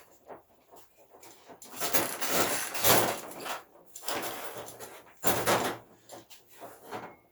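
Old Poulan chainsaw being pull-started: two yanks of the recoil starter cord, the first longer, each a rasping whoosh of rope and cranking engine, without the engine catching after a shot of starting spray.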